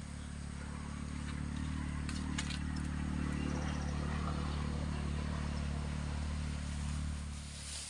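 A motor engine running steadily, heard as a low hum that swells slightly and then cuts off abruptly near the end. A few faint clicks come about two seconds in.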